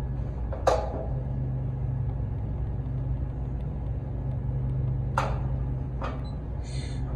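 Steady low hum of the Masterbilt freezer's refrigeration unit running, with a few sharp clicks from the buttons of its digital temperature controller being pressed, one about a second in and two near the end.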